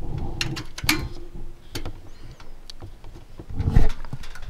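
Scattered clicks and light plastic-and-metal knocks of hands working cables and connectors in a desktop PC case, with a louder low knock a little before the end.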